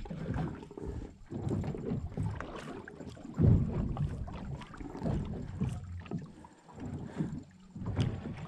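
Wind buffeting the microphone in uneven low gusts, over the wash of sea water around a small boat.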